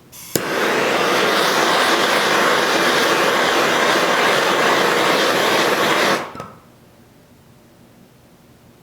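Handheld torch clicking alight, then its flame hissing loudly and steadily for about six seconds before it is shut off.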